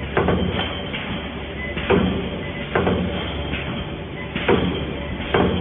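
Automatic wire mesh welding machine running: a sharp clunk of its mechanism about once a second, over a steady machine hum.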